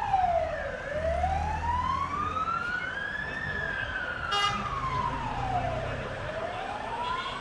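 Ambulance siren wailing in a slow rise and fall: it dips low about a second in, climbs to a peak about three and a half seconds in, dips again about six seconds in and starts to rise near the end. Vehicle engines rumble underneath, and there is a short sharp blip about four and a half seconds in.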